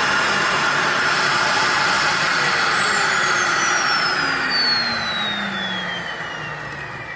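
Dyson DC40 upright vacuum cleaner's motor running, then switched off and winding down: its high whine falls steadily in pitch and the sound fades over the last couple of seconds.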